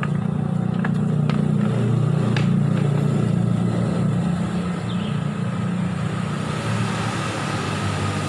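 Yamaha R25 motorcycle's 250 cc parallel-twin engine running at a steady speed, with a few faint ticks in the first few seconds.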